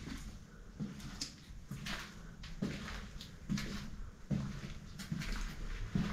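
Slow, even footsteps in an empty hallway, a little more than one step a second, several with a gritty scuff.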